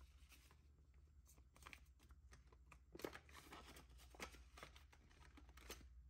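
Near silence with a few faint rustles and light ticks of paper money and cash envelopes being handled.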